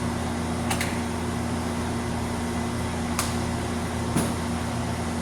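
Steady machine hum from a kitchen fan or appliance, with three faint light ticks, like a spoon or a spice container.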